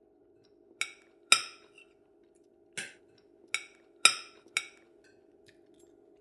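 About six sharp clinks of cutlery against crockery, each ringing briefly, the second and fifth the loudest, over a faint steady hum.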